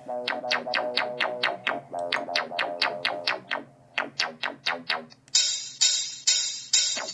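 A rhythmic electronic music track with guitar, played through the Google Pixel XL's built-in speaker, thin with no deep bass. About five seconds in it changes to a brighter section.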